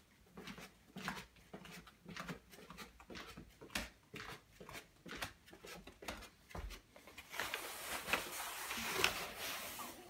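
Footsteps and knocks going down indoor stairs, several a second, then a steady rushing hiss that sets in about seven seconds in and runs on.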